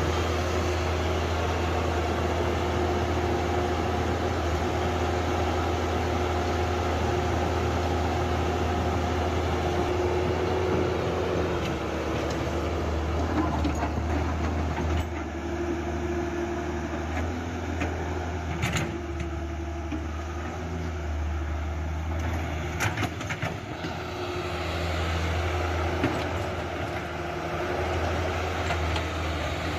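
Mini excavator's engine running steadily with a strong low hum, its level shifting a little as it works, with a few sharp knocks in the second half.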